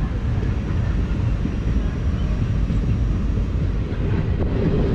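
Passenger train running along the track, heard from aboard a coach: a steady low rumble of wheels on rails.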